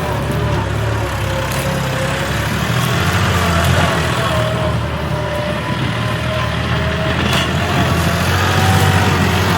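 John Deere tractor's diesel engine running steadily under load.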